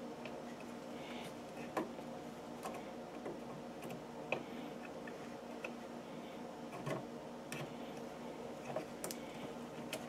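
Scattered small clicks and taps as a RAM module is worked into a motherboard memory slot by hand, about seven irregular clicks over a steady faint hum.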